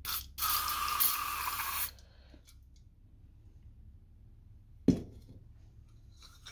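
Aerosol can of brake cleaner spraying into the exhaust port of a small four-stroke cylinder head, a short puff then a steady hiss of about a second and a half, to test whether the exhaust valve seat leaks. About five seconds in, a single sharp knock.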